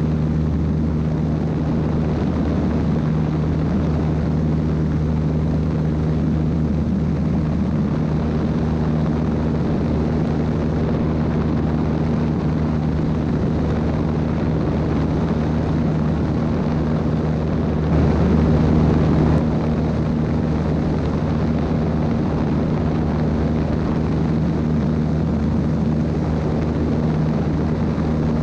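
Aviat A-1C Husky's piston engine and propeller running with a steady drone in cruise, mixed with rushing air, heard from a camera mounted on the airframe. It gets briefly louder about two-thirds of the way through.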